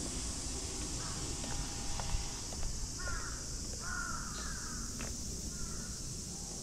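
A crow cawing about four times, spaced over a few seconds, with the longest caw about two-thirds of the way through.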